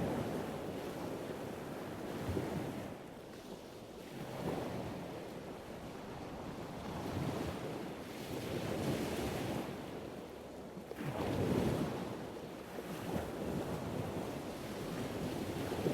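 Rushing wind on the microphone mixed with the wash of ocean surf, swelling and easing every couple of seconds.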